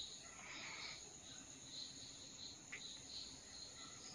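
Crickets chirping faintly, short high chirps repeating about three times a second, with a small click at the very start.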